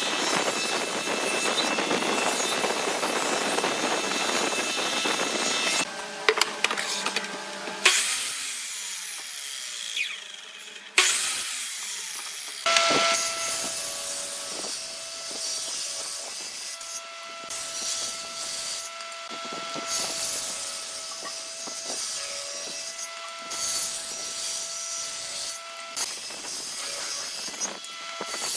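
A thickness planer running and planing old pallet boards: a dense, loud machining noise for about the first six seconds, followed by a few sharp knocks. From about halfway on, a table saw runs with a steady whine as short pieces of wood are pushed through the blade, its cutting noise rising and falling with each cut.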